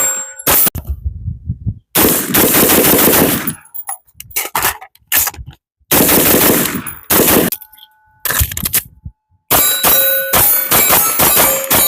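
Rapid gunfire in several strings of quick shots, each a second or so long, with struck steel targets ringing between and after the strings.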